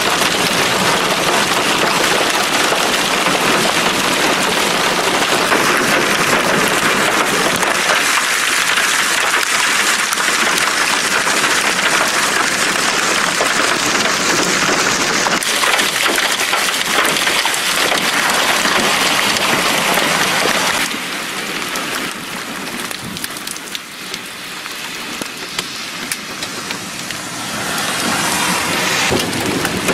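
Hail mixed with heavy rain pelting down, a dense steady hiss of stones and drops hitting the ground. It turns lighter about two-thirds of the way through, then builds again near the end.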